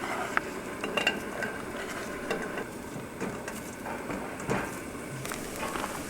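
Metal cooking utensils and cookware clinking and knocking: scattered light clicks and short ringing taps.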